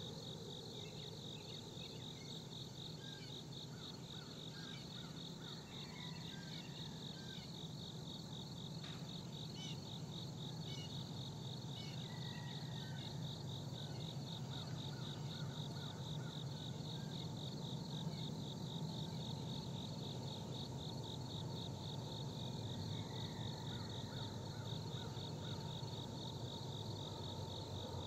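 Crickets chirping in a fast, steady pulsing trill, with a few short bird chirps, over a low distant rumble that slowly grows louder: diesel locomotives, still out of sight, accelerating back up to track speed.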